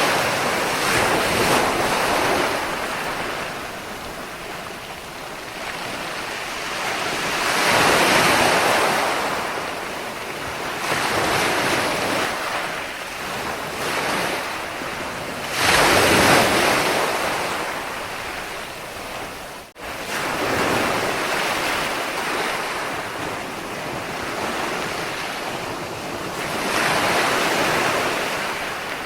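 Ocean waves breaking on a shore, the rushing wash swelling and fading in slow surges every several seconds, with the sharpest, loudest break about sixteen seconds in.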